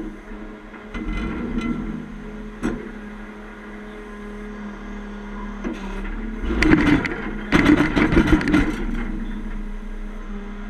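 Heavy diesel truck engine idling steadily, then revving up in two rough surges about two thirds of the way through. A single sharp knock comes about two and a half seconds in.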